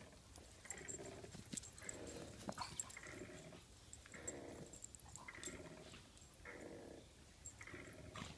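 Two dogs play-fighting, with faint growls coming about once a second and scattered light clicks.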